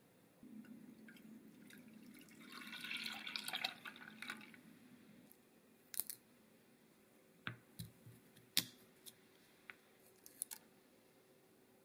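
A soft wet dripping and squelching over the first few seconds, then a string of sharp, separate clicks and knocks as cardamom pods are dropped into a marble mortar.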